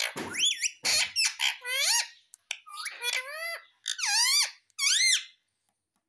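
Indian ringneck parakeet giving a quick run of about seven short, high-pitched calls, many gliding up and down in pitch, which stop about five seconds in.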